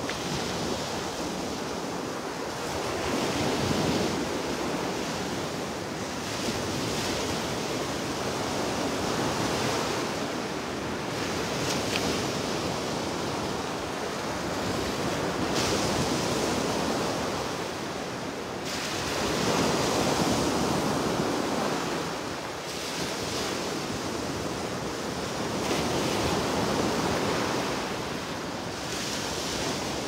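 Gulf of Mexico surf breaking and washing up on a sandy beach: a steady wash of noise that swells and eases every few seconds as the waves come in.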